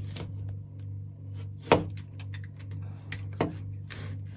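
A few sharp taps and clicks from a hand tool being worked along the edge of a window film against the glass and frame, the loudest about two seconds in and another about a second and a half later, over a steady low hum.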